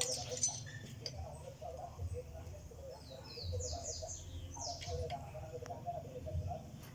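A bird calling in the background: a rapid series of high, falling chirps right at the start and again about three and a half seconds in, over a steady low hum.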